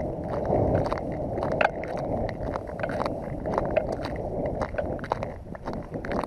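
Wind buffeting the microphone on open ice, a steady rumbling, with many small sharp clicks and ticks scattered through it.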